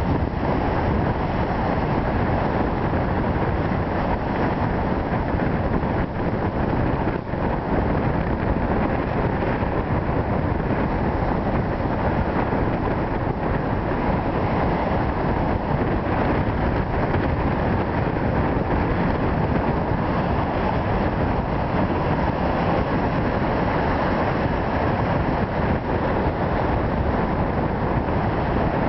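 Storm waves breaking on a rock jetty, heard through strong wind blowing on the microphone: a loud, steady noise with no clear separate surges.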